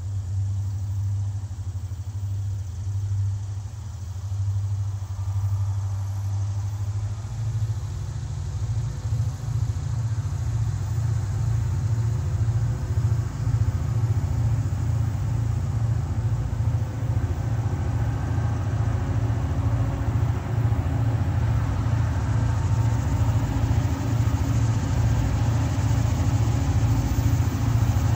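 Diesel locomotive engine running as it approaches, still out of sight: a low pulsing rumble that grows gradually louder, with higher engine tones filling in about a third of the way through.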